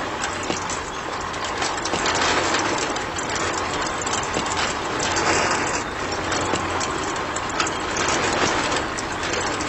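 DIY mini tractor's small motor running steadily, under a dense crackling and crunching noise.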